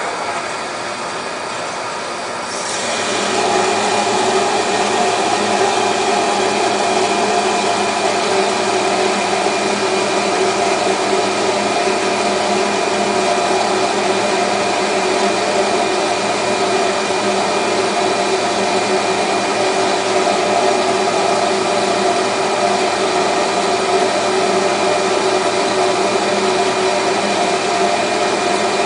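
AS-MK III micro-nano bubble generator running steadily with its pump, a hum with water and air rushing through it. It gets louder about three seconds in and holds steady as it jets a milky cloud of micro-bubbles into the water.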